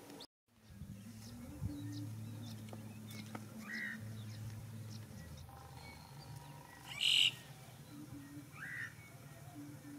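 Outdoor ambience: a steady low hum with a few short, high chirping calls, the loudest about seven seconds in.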